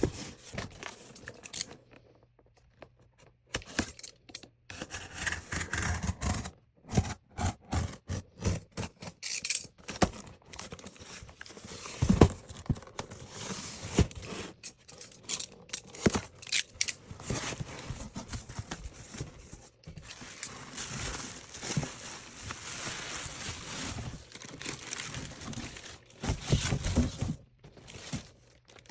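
Packaging being handled and opened by hand: irregular rustling, crinkling and tearing with many small clicks, and a heavier knock about twelve seconds in.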